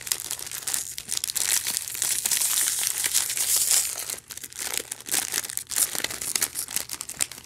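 Foil wrapping on a snack tray being torn open and crinkled by hand: a dense crackling rustle, loudest about two to four seconds in.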